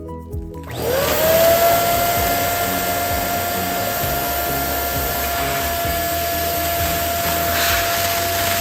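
Electric balloon inflator switching on about a second in, its motor whine rising quickly and then holding at a steady pitch under a loud rush of air as it blows up a balloon.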